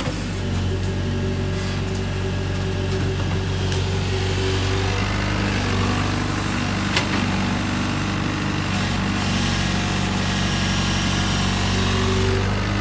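Kobelco excavator's diesel engine running steadily, its pitch shifting slightly about halfway through, with one sharp click about seven seconds in.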